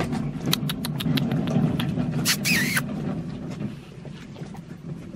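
An engine running steadily, dying away after about three and a half seconds, with scattered clicks and a short harsh noise a little past two seconds in.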